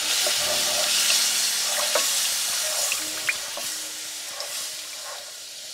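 Onion, garlic and rice-flour roux with almond milk just added, sizzling and bubbling in a frying pan while a spatula stirs and scrapes through it, with a few light clicks of the utensil on the pan. The sizzle gets quieter toward the end.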